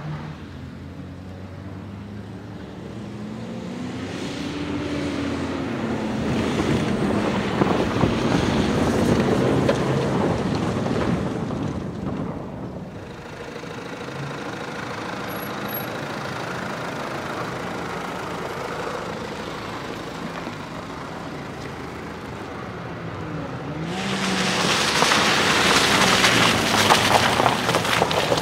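Engines of 4x4 SUVs on a dirt off-road course, running and revving, their pitch rising and falling with the throttle as they climb and crawl. Near the end comes a loud, rough crunching of tyres on loose gravel.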